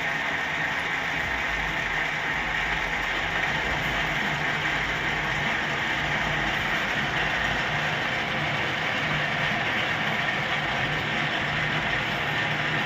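Metal lathe running steadily, a continuous mechanical gear noise with a low hum underneath.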